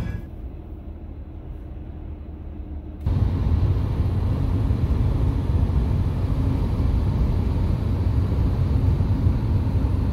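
Steady road and engine noise heard from inside a van driving at highway speed, strongest in the low rumble. It is quieter and duller for the first three seconds, then steps up suddenly to a louder, fuller drone.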